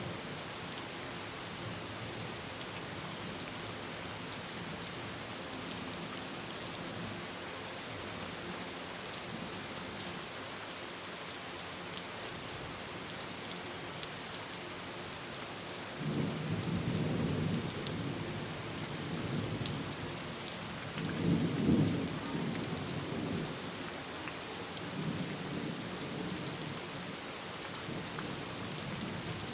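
Heavy rain falling steadily on a tin roof, with thunder rumbling in over it: a roll that starts suddenly about halfway through, a louder peak a few seconds later and a fainter rumble near the end.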